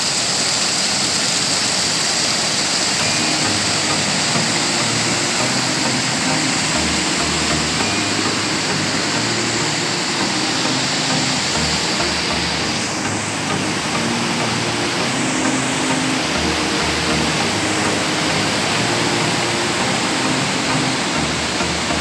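Steady rush of a tiered waterfall, water pouring over rock ledges in a constant, even roar.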